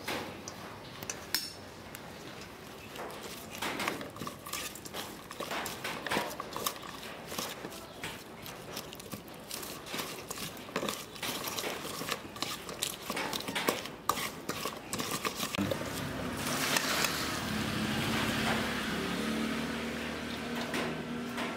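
Metal spoons clinking and scraping against a stainless steel mixing bowl as chopped lemongrass, garlic, shallots and chilli are tossed together, in many quick irregular clicks. About three-quarters of the way through it turns into a denser, steadier rustle with a low wavering tone underneath.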